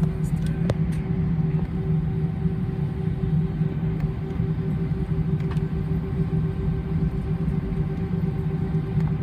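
Cabin noise of an Airbus A320 taxiing, heard from inside the cabin: the steady low rumble and drone of its IAE V2500 turbofan engines at taxi power, with a constant hum.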